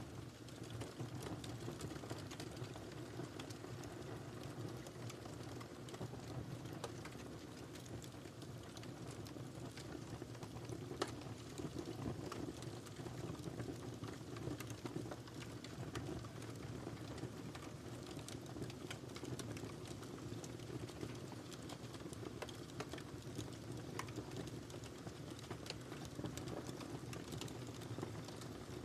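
Wood fire burning in a fireplace: a steady low rumble of the flames with frequent irregular small crackles and pops, one sharper pop about eleven seconds in.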